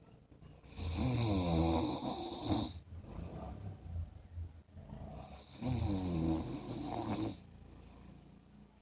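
A man snoring in his sleep: two long snores, each about two seconds, some five seconds apart. Each is a low buzz that wavers in pitch, with a breathy hiss over it.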